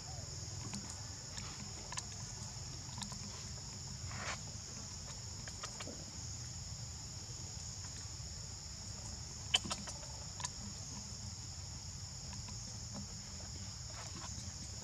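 Steady high-pitched drone of an insect chorus over a low rumble, with a few faint clicks and taps scattered through it, the sharpest pair about nine and a half seconds in.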